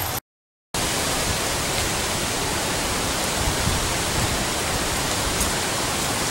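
Steady, even rushing of wind outdoors, with no distinct events. It is broken near the start by a half-second dropout to silence at an edit.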